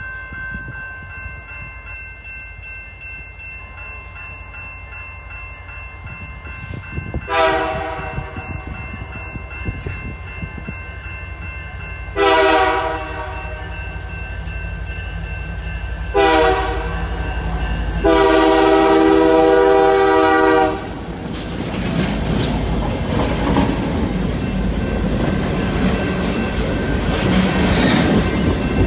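Approaching CPKC freight train led by an SD30C-ECO locomotive sounding its Nathan K3L air horn in four blasts, the last and longest about eleven seconds in. The locomotives and cars then roll past with rising rumble and wheel clatter.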